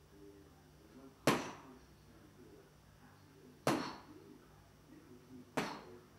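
A hand banging on a pane of glass: three sharp knocks, about two seconds apart.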